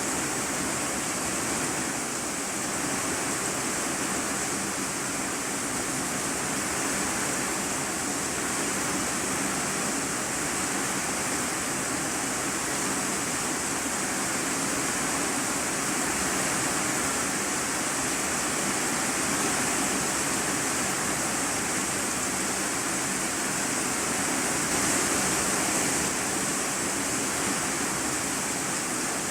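Heavy rain falling on an iron-sheet roof, heard from inside the room beneath it: a dense, steady hiss that keeps an even level throughout.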